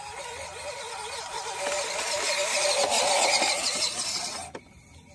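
A 1:12 scale MN D90 RC crawler's electric motor and gearbox whining, its pitch wavering with the throttle as it crawls over rough dirt. It grows louder and then cuts off abruptly near the end.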